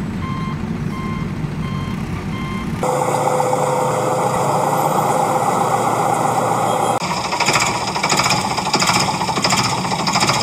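Heavy-machinery sound effects: a reversing alarm beeping over a low engine rumble, then about three seconds in an abrupt change to a steady machine whine, and from about seven seconds a rapid rhythmic clatter.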